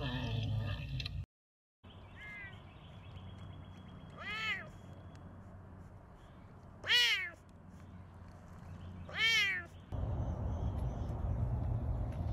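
A serval meowing: three loud, high meows that rise and fall in pitch, each about half a second long and about two and a half seconds apart, after a fainter one near the start. A steady low noise cuts in near the end.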